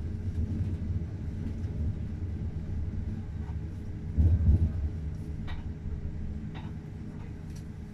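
Steady low rumble of a moving passenger train heard from inside the carriage, with a louder swell about four seconds in and a few faint clicks after it.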